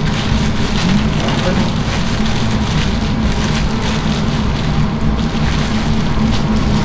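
Busy shop-kitchen background: a steady crackling hiss with a low hum under it, and faint voices.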